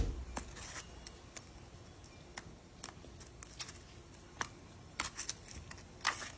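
Plastic fork stirring and tapping in a plastic tub of wet patching mix: scattered light clicks and scrapes at an uneven pace, with a few sharper clicks near the end.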